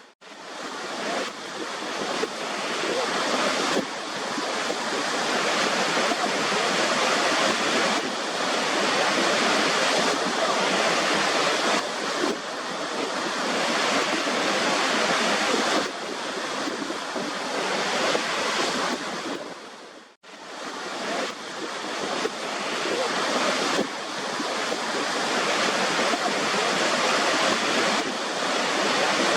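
Waterfall rushing in a steady, dense roar of falling water, cut off sharply to near silence for a moment right at the start and again about two-thirds of the way through.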